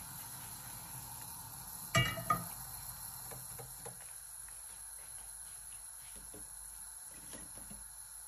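A non-stick pot set down on the cast-iron grate of a gas hob: a clank about two seconds in with a quick second knock and brief metallic ringing, then a few light taps. A steady high-pitched hiss runs underneath, and a low rumble drops away about four seconds in as the burner is turned to a low flame.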